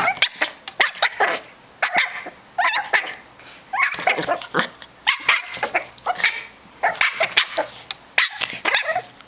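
Rat terrier puppy yipping and barking in play: runs of short, high-pitched yaps coming in bursts throughout.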